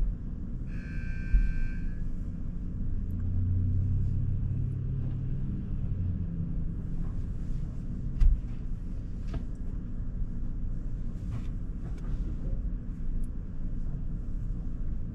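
Automatic car wash running, heard from inside a closed SUV cabin: a steady low rumble of the wash machinery and water spray on the body, muffled by the car. Two sharp thumps sound about a second in and again about eight seconds in, and a brief beeping tone comes near the start.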